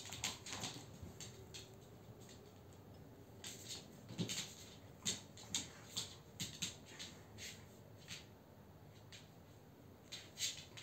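A dog and an Abyssinian cat play-fighting on a laminate floor: scattered soft taps and scuffles of paws and claws, coming in irregular clusters.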